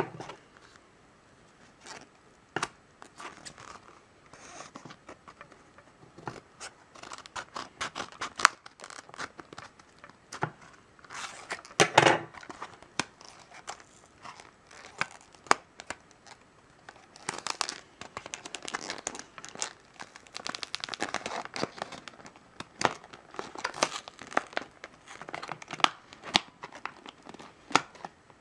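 Plastic and card retail packaging handled and torn open by hand: irregular crinkling, tearing and clicking, with the loudest crackle about twelve seconds in.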